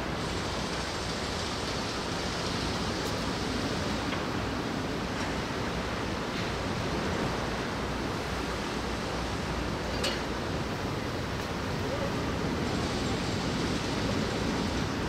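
Steady rushing noise of wind and rain, with one faint click about ten seconds in.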